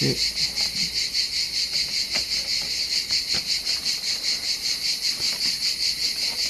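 A steady, high-pitched insect chorus pulsing about six times a second, with a couple of faint plastic clicks as the spray mop's handle is worked onto its mop frame.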